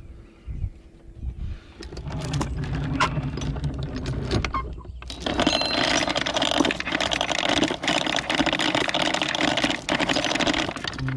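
Anchor chain paying out over the bow windlass: a continuous metallic clatter of links that starts about two seconds in and grows louder and denser from about five seconds in.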